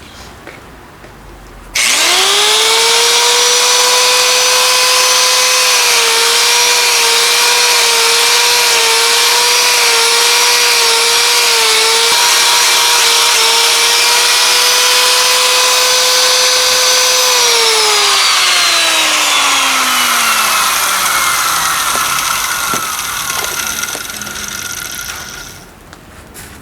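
Electric power tool motor switched on, spinning up to a steady high whine. It dips and wavers several times as it works on the fire pit's metal, then is switched off and slowly winds down, falling in pitch.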